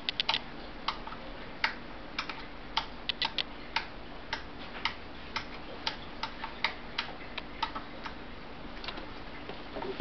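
Irregular sharp clicks and ticks, a few a second and uneven in spacing, over a faint steady hum.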